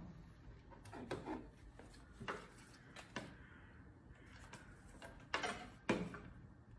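Handling noise from a plastic motion-detector sensor being picked up and set down on a table: a few light knocks and rubs, the two loudest knocks near the end.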